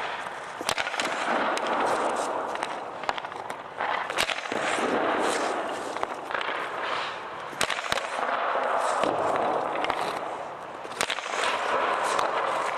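Ice skates scraping and carving on rink ice, swelling and fading as players skate in. Several sharp cracks come through it: sticks striking pucks, and pucks hitting the goalie's pads and the boards.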